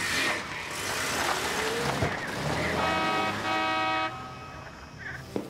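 A car pulling away, its engine note rising, then two short toots of the car horn.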